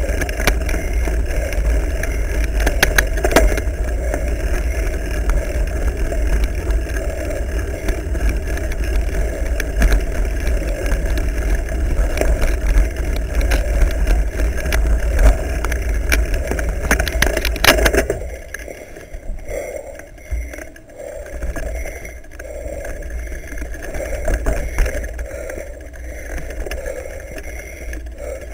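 Mountain bike ridden over a rough grassy trail, heard from a camera mounted on the bike or rider: a steady rumble with wind on the microphone and many rattling knocks from bumps. About two-thirds of the way in it turns quieter and smoother.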